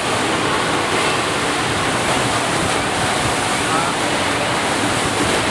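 Steady rush of water from a FlowRider sheet-wave machine, a thin sheet of water pumped at speed up the ride surface.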